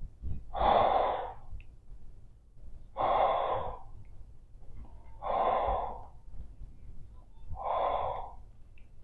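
A woman breathing heavily through her nose, her mouth held around a blown bubblegum bubble: four long breaths, about two and a half seconds apart.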